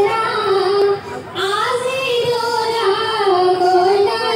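Women singing a slow melody with long held notes into a microphone, amplified over a public-address system: a welcome song opening the stage programme.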